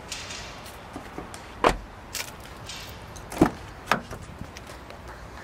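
Doors of a 2013 Subaru XV Crosstrek being worked by hand. A solid thump comes about a second and a half in, then another about three and a half seconds in, with a smaller knock and latch and handle clicks around them, as the rear door is shut and the front passenger door opened.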